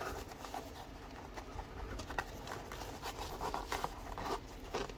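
Faint scuffing and rubbing of hands working a sneaker insole back into the shoe, with a few soft irregular clicks and taps.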